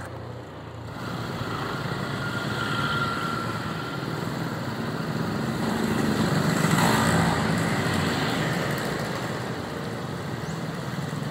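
Road traffic: small motorcycles riding past on the street. Their engine noise swells to a peak about two-thirds of the way through, then eases off.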